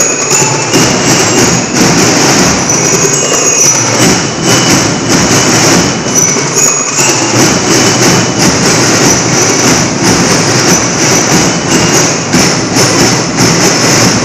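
Marching band drums playing loudly with a steady beat, with short high ringing notes over the drumming.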